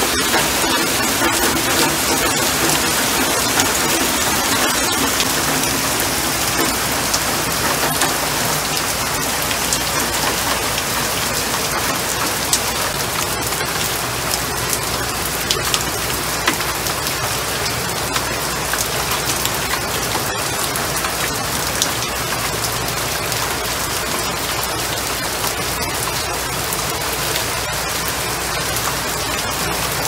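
Steady rain falling on leaves and into a puddle on pavement, with many small drop ticks.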